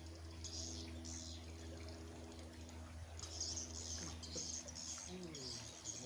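Birds chirping in repeated short high bursts, over a steady low hum.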